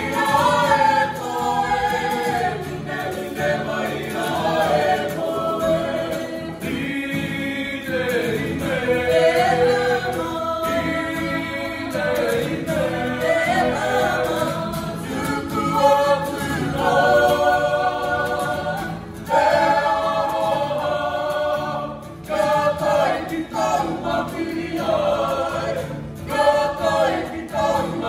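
A group of performers singing a Māori poi song together, accompanied by a strummed acoustic guitar.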